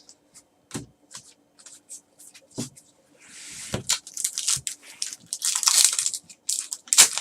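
Trading cards being handled, a few light clicks and taps, then about three seconds in a foil card-pack wrapper being torn open and crinkled.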